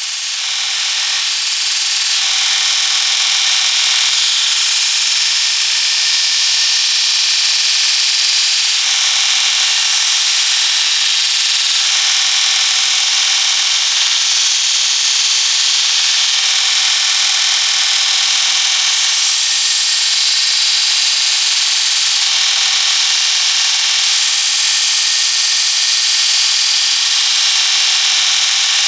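Power sanding tool running steadily against the workpiece: a continuous abrasive hiss with a faint motor hum underneath.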